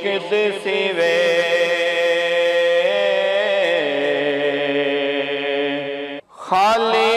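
Chanted vocal drone of a Punjabi Sufi kalam: a long held note with slight wobbles, stepping down in pitch about four seconds in. It cuts off abruptly just after six seconds, then resumes on a new held note.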